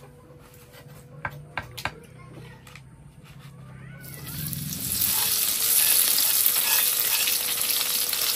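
A few light clicks and knocks, then about four seconds in, loud, steady sizzling of chopped green ingredients frying in hot oil in a wok as they are stirred with a wooden spatula.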